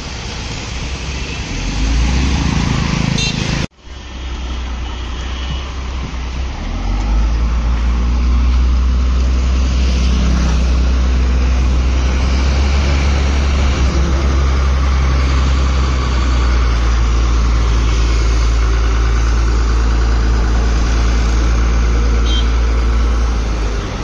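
Roadside vehicle noise at first, broken off suddenly about four seconds in. Then a LiuGong 414 motor grader's diesel engine runs steadily at close range, a deep low rumble that grows louder about seven seconds in and then holds even.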